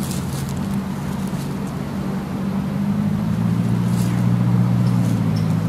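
Steady low engine hum with a slight shift in pitch about three seconds in, and a few faint clicks over it.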